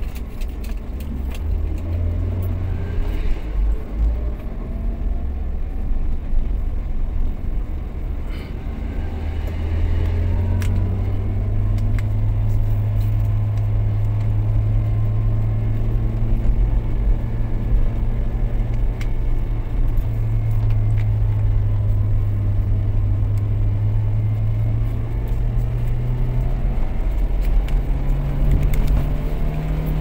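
Car engine and road noise heard from inside the cabin of a moving car. The engine's low hum is steady, stepping up in pitch about a third of the way in and climbing again near the end as the car speeds up.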